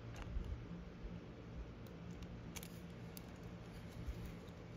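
Faint clicks and scrapes of a small plastic wiring connector being handled while its terminal pins are pushed out with a slim tool, over a low steady hum.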